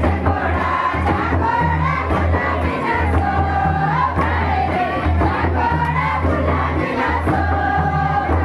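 A group of young people singing a folk song in chorus over a deep, steady drum beat, with crowd noise around it.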